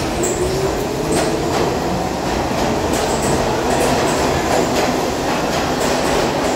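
R68 subway train pulling out and running past along the platform, its steel wheels clattering over the rail joints in a steady loud rush of rail noise.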